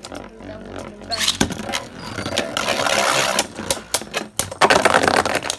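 Beyblade Burst spinning tops whirring and scraping across a plastic stadium floor, with many sharp clicks as they strike each other and the walls, and two longer stretches of grinding.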